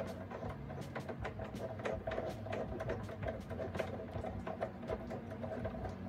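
Screwdriver driving the Euro lock cylinder's long retaining screw through a door's lock case: quick, irregular metallic clicks and scrapes as the screw is turned.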